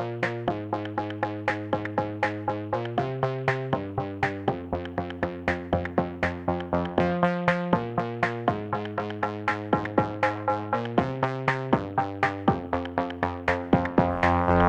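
Background music: electronic track with a steady, even pulse of repeated synth notes over shifting chords.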